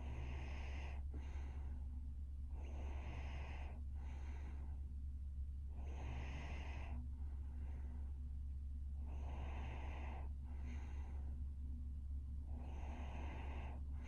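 A sleeping young woman's snoring breaths, about four in all, coming roughly every three seconds, each a longer breath followed by a short second one. A steady low hum runs beneath them.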